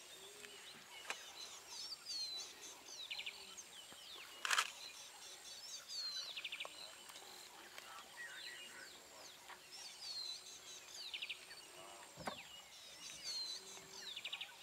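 A songbird repeating a short phrase every few seconds: a rapid trill followed by quick downward-slurred whistles, over a faint steady high tone. A single sharp snap about four and a half seconds in is the loudest sound.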